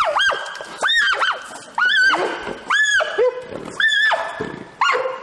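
Giant panda squealing repeatedly during a violent mating introduction between a male and a female: about six loud, high-pitched squeals, roughly one a second, each rising and then falling in pitch.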